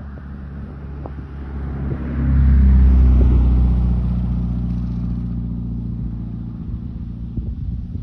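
A motor vehicle's engine running close by, with a low, steady hum. It grows loud quickly about two seconds in, then fades slowly.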